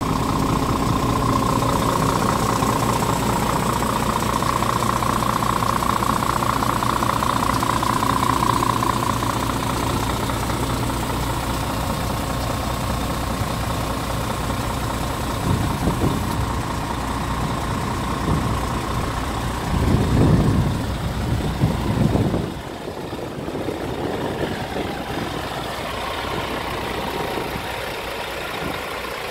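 Scania R450 truck's six-cylinder diesel engine idling steadily. A few louder rushes of noise come in the second half, and the engine sound then drops quieter about three quarters of the way through.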